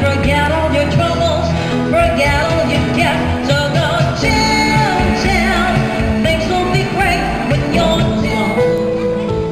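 Pop song performed by a duo: a woman singing over electric keyboard accompaniment with a steady bass line.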